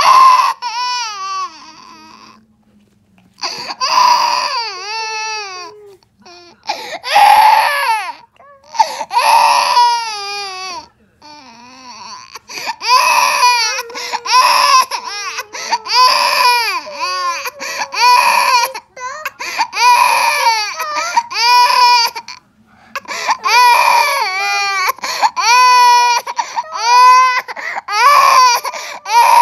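A crawling baby crying hard in long, high wails with short gasps for breath between them, startled into tears by a balloon bursting.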